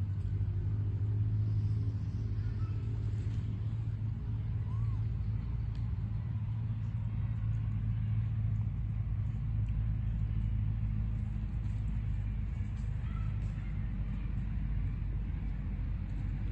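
A steady low engine hum with a few faint high chirps over it.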